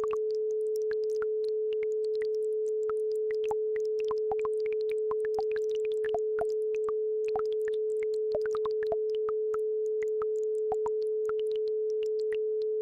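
A steady pure sine tone at 432 Hz, the base frequency of an isochronic tone track, with the scattered small plinks and trickles of a babbling brook behind it.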